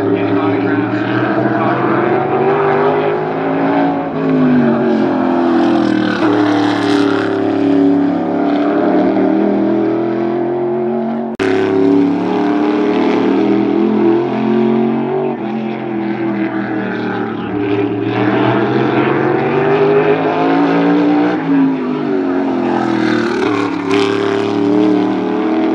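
Modified race car's V8 engine lapping a short oval: the engine note climbs on the straights and drops off into the turns, over and over. It is briefly cut about 11 seconds in.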